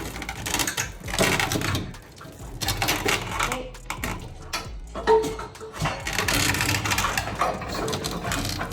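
Irregular metallic clattering and rattling from hand work on a car's stripped wiring and parts, with many short sharp clicks.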